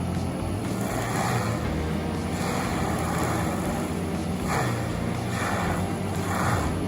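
Heavy forestry machine's engine running steadily, with several short surges of rushing noise over the drone.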